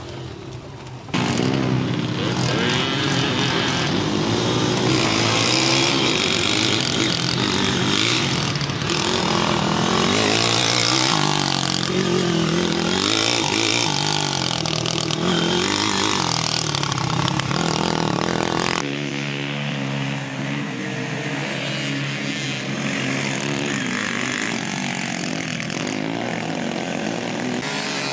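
Small quad bike's engine revving, its pitch rising and falling with the throttle as it rides a dirt course. The sound is quieter for about the first second, then loud, and drops abruptly in level about two-thirds through.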